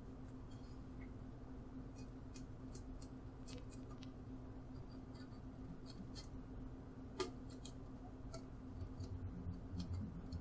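Faint, scattered clicks and light scratches of an X-Acto hobby knife cutting through a thin plastic bag, with one sharper click about seven seconds in, over a steady low hum.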